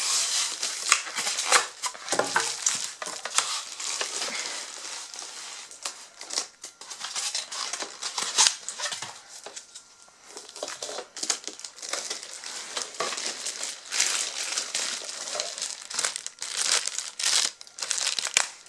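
Thin clear plastic bag around a boxed machine crinkling and rustling in irregular bursts as it is handled, with polystyrene packing pieces rubbing as they are pulled off.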